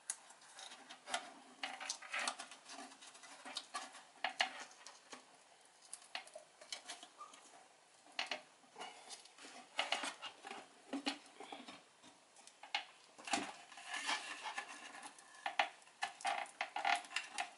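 Hands working inside an empty wooden subwoofer cabinet to free its glued-in amplifier module: irregular clicks, taps and scraping. They come thicker and louder in the last few seconds, as the amplifier panel is pulled at from the side.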